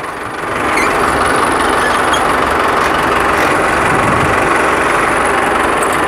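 Mahindra Arjun Ultra-1 555 DI tractor's diesel engine running loud and steady close by, picking up about half a second in.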